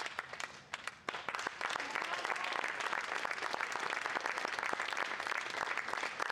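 Audience applauding. The clapping thins briefly, then picks up again about a second in and carries on steadily.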